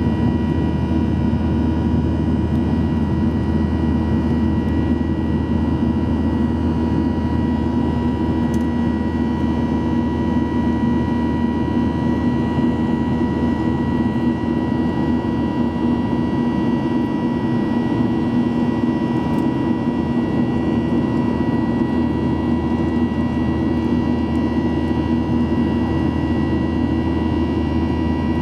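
Boeing 737-800's CFM56-7B turbofan engines heard from inside the passenger cabin: a steady, even drone with a constant whine on top.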